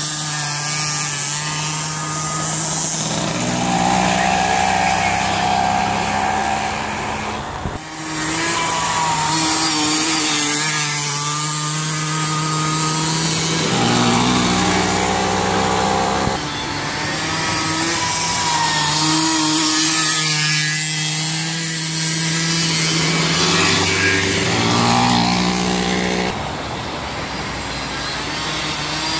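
Several small 50cc two-stroke engines, a mini quad, a moped and a scooter, revving hard and racing past close by, overlapping in pitch that climbs and drops as each one accelerates and backs off.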